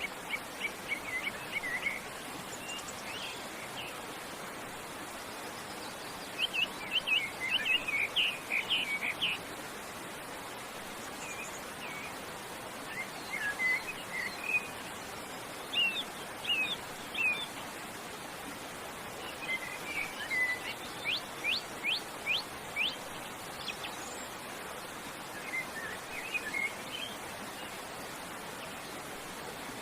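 Wild songbirds chirping and singing in short phrases every few seconds, with a quick run of rising notes about two-thirds of the way in. Under them runs a steady rushing noise of forest water.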